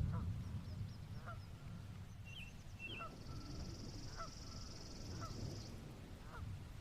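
Faint outdoor nature ambience: short animal calls repeating about once a second, with a high buzzing trill through the middle. A low rumble dies away at the start.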